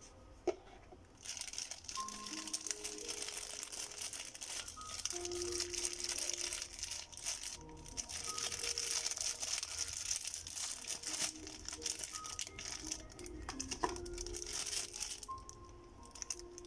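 A small plastic zip-lock bag crinkles and rustles as it is handled and opened, with sharp clicks now and then. The crinkling starts about a second in and stops near the end. Soft background music with a gentle plinking melody plays throughout.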